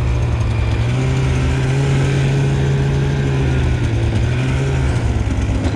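Snowmobile engine running steadily as the sled rides through powder snow. Its pitch lifts a little and then eases back after about three seconds.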